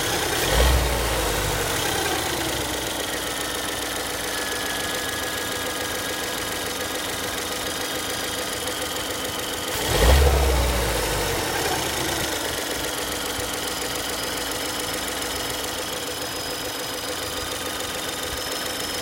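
Ford Kuga 1.6 EcoBoost running with a thin whistle, which the owner puts down to its 6F35 six-speed automatic gearbox. A low surge comes about a second in and again about ten seconds in, and each is followed by a whine that slowly falls in pitch.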